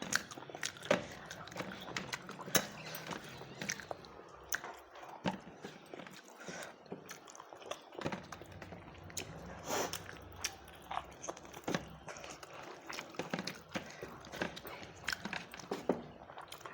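A person chewing and eating rice, with many irregular sharp clicks and smacks throughout.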